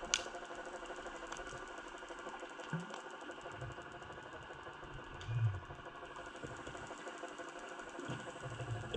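A steady mechanical hum with a fast, even ticking, heard underwater, with a sharp click just after the start and a dull low thump about five seconds in.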